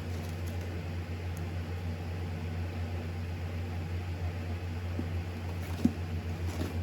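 Steady low electrical or fan-like hum of room background noise, with a few faint clicks and one short sharp click near the end.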